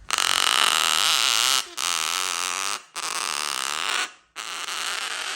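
Female gang-gang cockatoo giving four harsh, rasping calls in a row, each about a second long with short gaps between.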